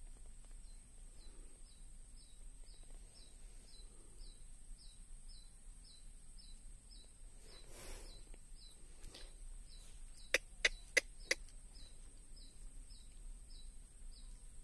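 Outdoor background of a short high chirp repeated about twice a second over a steady thin high whine. A soft rustle comes about eight seconds in, then four quick, sharp clicks a little over ten seconds in, the loudest sounds here.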